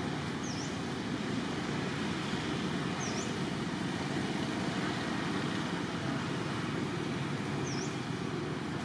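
Steady low outdoor rumble, like distant traffic, with three brief high-pitched chirps a few seconds apart.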